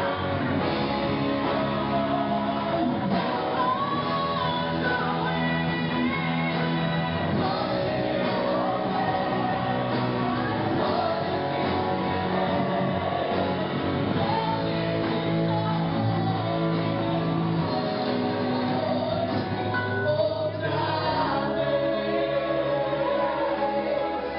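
Gospel worship song: singers over a backing band, playing continuously.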